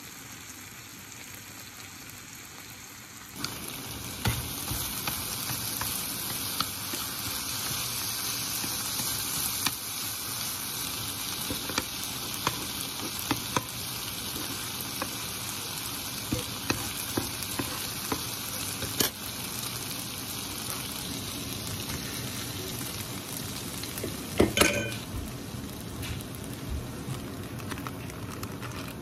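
Stir-fried pork, rice and two eggs sizzling in a frying pan: a steady frying hiss that gets louder a few seconds in. Occasional sharp taps of a spoon or chopsticks, with a louder clatter near the end.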